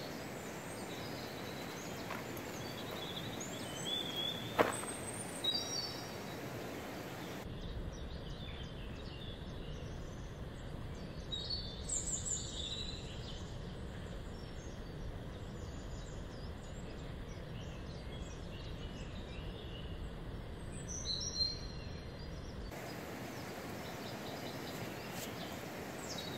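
Outdoor riverside ambience: a steady background rush with small birds chirping now and then. A single sharp click comes about four and a half seconds in, and for the middle part the background turns deeper and duller.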